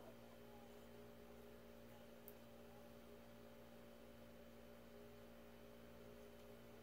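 Near silence: a faint, steady hum, with a single faint click about two seconds in.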